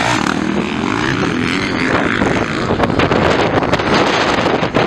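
Motocross dirt bike engines revving and running hard as the bikes race past, with wind noise on the microphone.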